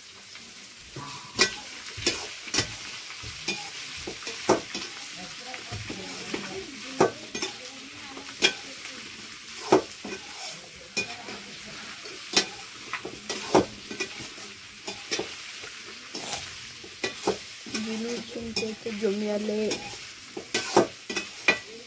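Chicken pieces sizzling in a black iron kadhai over a wood fire, with a steady frying hiss. A metal ladle stirs and scrapes them, and its repeated sharp knocks and scrapes on the pan come at an uneven rhythm.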